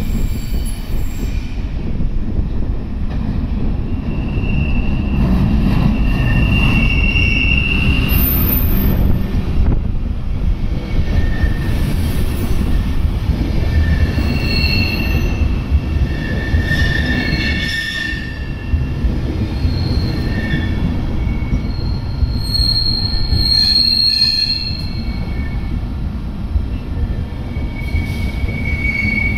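Intercity passenger coaches rolling slowly past at a platform as the train arrives. There is a steady low rumble from the wheels on the rails, and several brief high-pitched wheel squeals, most of them in the middle of the passage.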